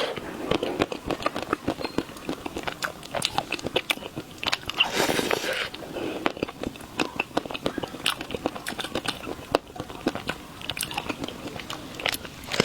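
Close-up biting and chewing of chocolate: a dense run of small crunches and wet mouth clicks, with a louder noisy stretch about five seconds in.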